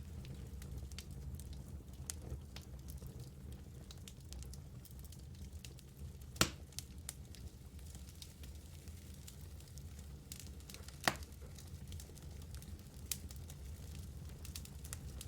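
Wood fire burning in a fireplace: a low steady rumble with scattered light crackles and two sharp, louder pops, about six and eleven seconds in.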